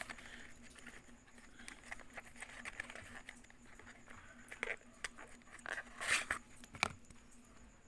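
Handling noise as a folding knife is brought out: scattered faint clicks and rustles, with a few sharper knocks in the second half, over a low steady hum.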